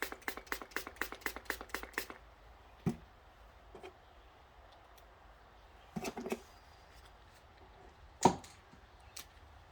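Dent-repair tool work on a car body panel: a fast, even run of sharp clicks, about five a second, which stops about 2 s in. Then a few scattered knocks follow, the loudest about 8 s in.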